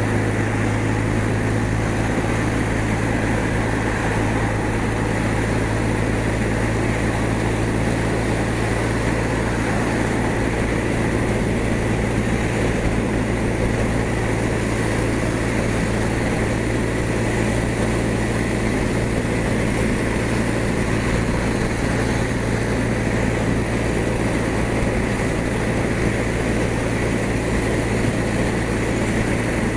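BMW R1200 RT's boxer-twin engine running steadily at motorway speed, a constant low drone under an even hiss of wind and tyres on a wet road.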